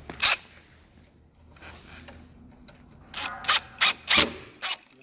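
Small metal screws and deadbolt hardware being handled as the latch is fixed to the door: a short scrape near the start, then a quick run of scrapes and clicks in the last two seconds.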